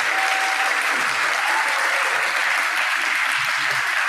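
An audience applauding, with many hands clapping at a steady level.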